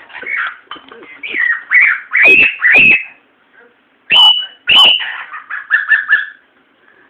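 Cockatiel calling: a few softer chirps, then four loud, shrill calls in two pairs about half a second apart, followed by a quick run of short chirps.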